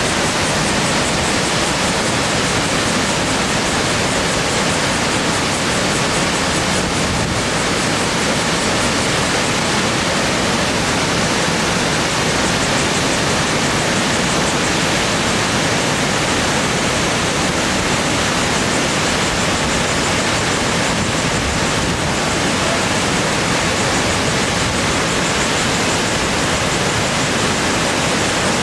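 Steady roar of a large waterfall, the Beauty Comb Waterfall, crashing down, heard across the river.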